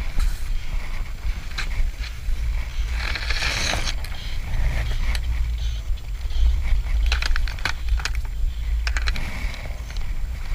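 Steady low rumble of wind buffeting the microphone of a camera riding a chairlift, with scattered clicks and rattles, several close together about seven to eight seconds in.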